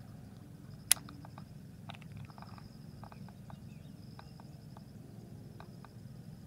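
An insect trills steadily at a high pitch, with a single sharp click about a second in and scattered light ticks after it, over a low rumble of wind or handling noise.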